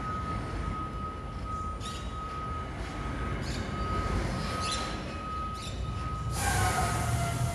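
Rear-loader garbage truck's engine running low as the truck moves off, under a thin steady high tone that comes and goes and birds chirping. Near the end a loud hiss starts.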